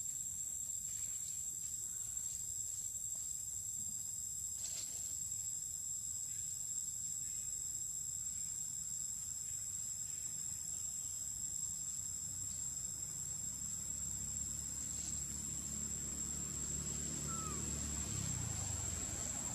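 A steady high-pitched insect drone, with no break and no change in pitch. A low rumble builds up under it over the last few seconds.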